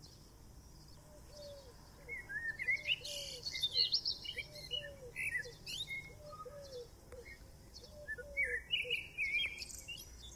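Birds chirping and calling: quick high chirps and whistles from about two seconds in, over a run of short, lower falling calls that repeat in twos and threes.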